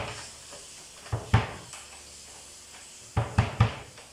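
Head of a 22-inch TAMA Imperialstar bass drum struck lightly to check its pitch during tuning: two low thuds, then three more in quick succession about three seconds in, each dying away quickly.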